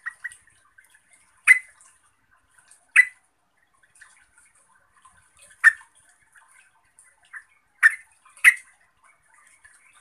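Yellow-vented bulbul giving short, sharp call notes, five loud ones at irregular intervals, with faint softer notes between.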